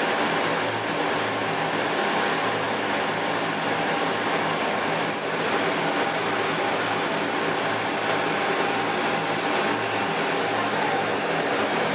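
Steady hum and rush of an aquarium's pumps and circulating water, with a constant low mechanical drone under it.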